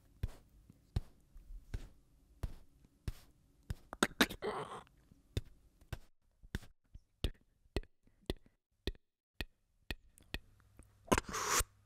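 Beatboxed sound effects made with the mouth: a loose string of short clicks and taps, roughly two a second, with a brief breathy burst about four seconds in and a sharp hiss near the end.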